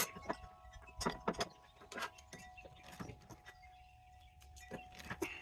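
Scattered clicks, snaps and knocks of plastic electrical plugs being broken apart with hand tools to get at their metal prongs, with a faint steady tone underneath.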